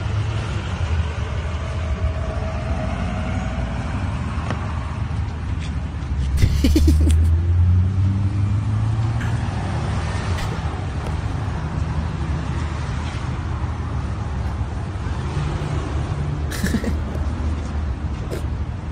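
Street traffic: cars driving past with a steady low rumble, louder for a couple of seconds about a third of the way in.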